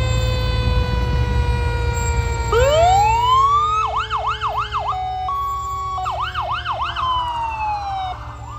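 Fire engine sirens. One siren winds down in a long, slowly falling tone. A second sweeps up about two and a half seconds in, switches to a fast up-and-down yelp, holds a steady note briefly, yelps again and glides down to a stop near the end. A low rumble runs underneath.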